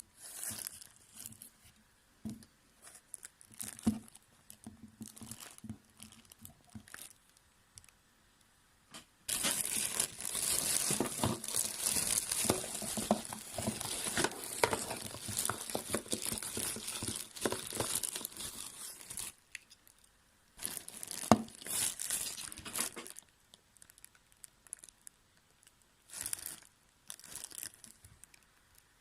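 Packaging being handled and torn open: scattered crinkling and rustling, a long stretch of continuous tearing and crinkling from about nine seconds in to about nineteen, then a few shorter bursts.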